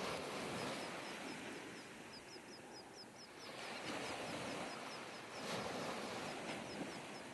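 Shallow surf washing up on a sandy beach, a rush of water that swells and eases, with a small bird chirping rapidly behind it.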